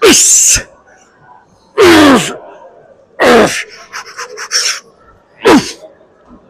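A man grunting and exhaling hard with each repetition of a heavy cable arm exercise: four loud, breathy grunts that fall in pitch, about one and a half to two seconds apart.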